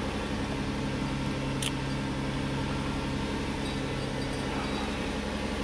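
Nissan Murano's 3.5-litre V6 idling steadily, heard from the driver's seat with the door open; the idle is running high because the idle air volume has not yet been relearned. One brief click about a second and a half in.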